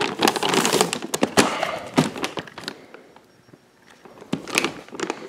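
Plastic wrapping on a boxed firework cake crinkling as the cake is picked up and handled, with a few sharp knocks of cardboard. The crinkling is loudest in the first second and a half, and the handling goes quieter for a moment after that.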